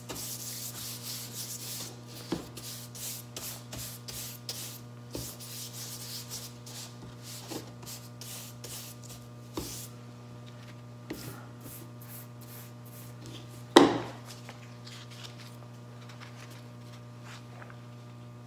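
Wide flat paintbrush scrubbing acrylic medium over a cotton canvas board in quick rasping back-and-forth strokes, thinning out after about ten seconds. A few light knocks, and one sharp knock about fourteen seconds in, the loudest sound, after which the brushing stops.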